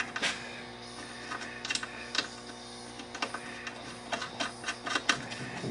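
Irregular clicks and knocks as a snowmobile engine and its mounting hardware are handled and shifted into place in the chassis while a bolt is lined up with its hole, over a steady faint hum.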